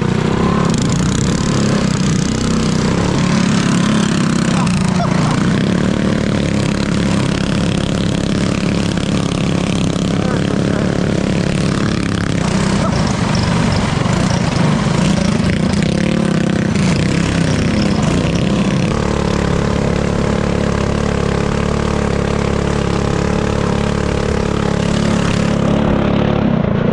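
Small engines of mini trikes running and being revved, the engine note rising and falling as the throttle changes, with a clear pitch shift about two-thirds of the way through.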